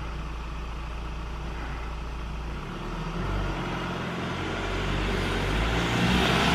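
Delivery van's engine approaching along the lane: a steady low rumble at first, then from about three seconds in the engine note comes through clearly and grows steadily louder as the van draws near.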